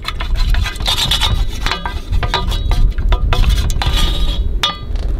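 Wooden spoon whisking eggs and milk in a metal pan: rapid clinks and scrapes of the spoon against the pan, stopping shortly before the end.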